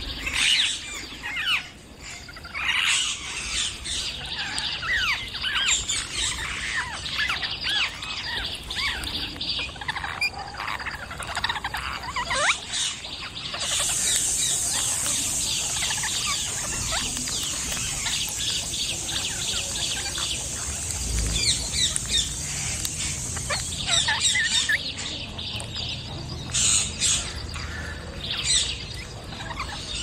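Parrots in a tree calling: many short squawks and chirps overlapping throughout. A steady high-pitched buzz sits under the calls for about ten seconds in the middle.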